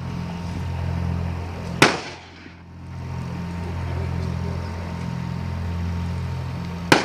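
M134 GAU-17 minigun firing two long bursts, each a continuous buzzing drone of shots too fast to tell apart. The first burst lasts about two seconds and the second about four, and each ends in a sharp crack.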